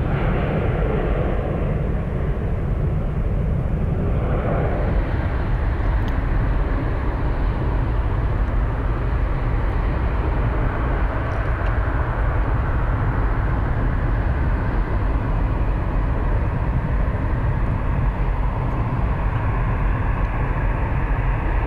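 Jet engine noise of an Airbus A319 climbing away after takeoff, falling in pitch as it recedes over the first few seconds, then a Swiss Airbus A220-300 on final approach and touching down, its engine noise growing near the end. A heavy low rumble runs under both.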